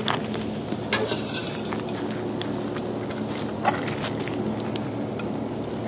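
Lighter fluid burning in an aluminium drink bottle, the flame making a steady rushing noise broken by a few sharp pops, about a second in and again past halfway.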